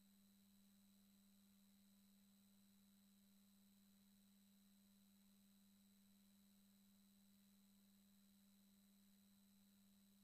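Near silence with a faint, steady low tone.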